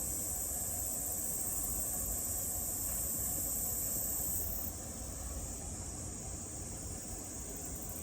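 Insect chorus, a steady high-pitched buzzing over a low rumble; one layer of the buzz stops about four and a half seconds in, leaving it a little quieter.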